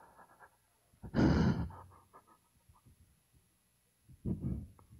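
A person breathing heavily and unsteadily between phrases, the breathing of someone emotionally overwhelmed. There is a loud breath about a second in, a few faint mouth clicks, and a shorter, partly voiced breath near the end.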